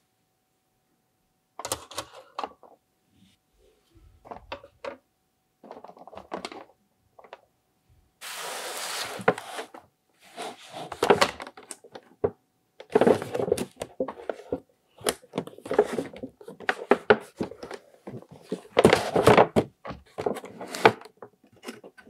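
Hands handling plastic toys: light clicks and knocks at first. After several seconds come longer scuffing and scraping stretches with sharp knocks as a cardboard toy box is picked up, turned over and set down.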